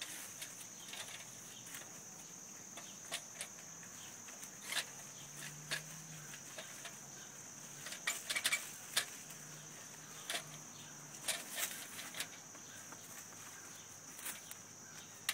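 Scattered clicks and light rattles from a wire live-trap cage as a dog noses and paws at it, the loudest cluster about eight seconds in, over a steady high drone of insects.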